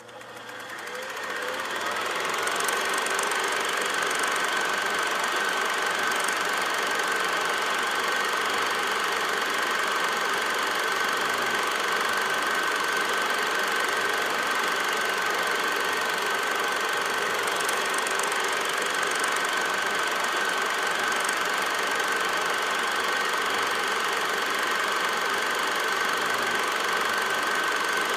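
Film projector running: a steady mechanical whirr with one even high whine over it. It builds up over the first two seconds as it starts and then holds level.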